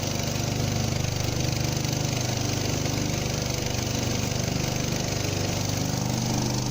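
Small passenger boat's engine running steadily while under way across the water: a low, even chugging hum.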